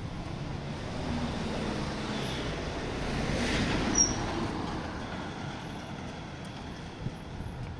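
A motor vehicle passing by, building up to its loudest about halfway through and then fading away, over the uneven rumble of strong wind on the microphone.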